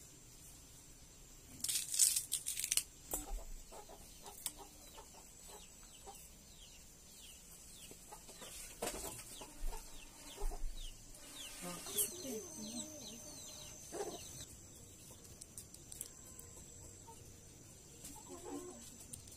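Chickens clucking, with many short high falling chirps over a stretch of several seconds and a brief loud rustle about two seconds in. Sharp taps and scrapes of a knife working onion and garlic come through here and there.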